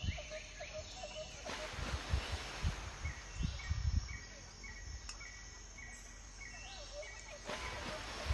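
Background ambience with a short high chirp repeating about twice a second through the middle. A hiss swells about a second and a half in and again near the end, with a few low knocks and bumps.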